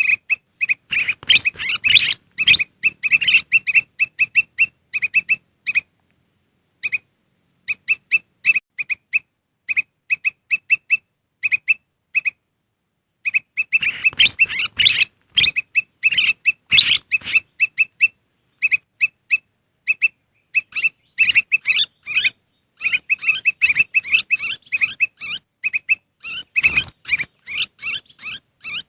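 Kutilang emas (a bulbul) lure call: fast, busy strings of short, sharp chirping notes. The strings pause briefly about six seconds in and again about twelve seconds in.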